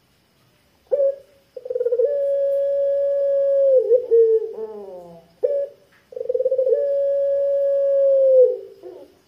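Puter pelung, a caged ring-necked (Barbary) dove, cooing in a deep voice. A short note comes about a second in, then a long drawn-out 'kwook' held steady and tailing off in falling notes. Another short note follows, then a second long, steady coo that drops away near the end.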